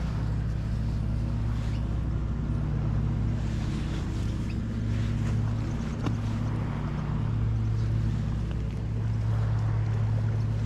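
A steady low motor drone with a faint haze of wind and water over it, and a single light click about six seconds in.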